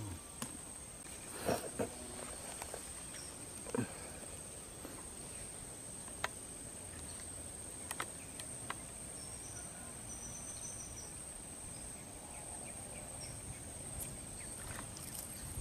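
Steady high-pitched insect drone in the background, with faint outdoor ambience and a few scattered light clicks and knocks.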